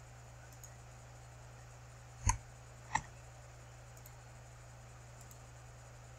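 Two sharp computer mouse clicks about three-quarters of a second apart, with a few fainter ticks, over a faint steady low hum.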